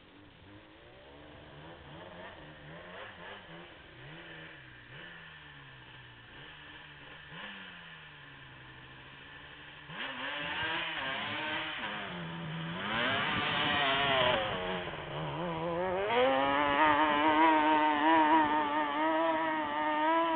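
ATV engines revving, among them a Yamaha Banshee's two-stroke twin. For the first ten seconds an engine revs up and down faintly at a distance. About ten seconds in an engine comes in much louder, its revs rising and falling. About sixteen seconds in it settles into a steady, higher running note close by.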